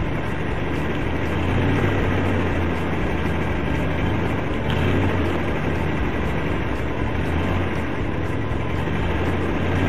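A car engine idling with a steady low hum.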